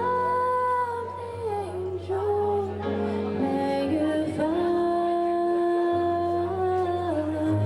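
A slow song with long held melody notes that move slowly from pitch to pitch over a steady bass backing, with a female singing voice.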